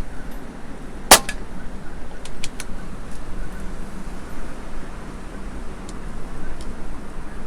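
Air Venturi Avenger PCP air rifle firing once: a sharp crack about a second in, with a fainter snap just after it. A few light clicks follow a second later, and strong wind rushes on the microphone throughout.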